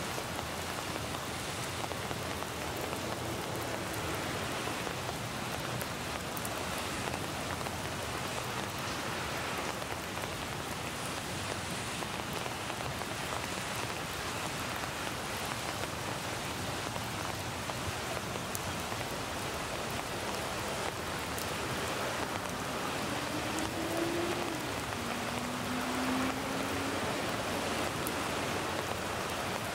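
Steady rain falling, an even hiss with scattered drop patter: real recorded rain mixed with a rain sound effect. A faint low hum rises briefly a little past the middle.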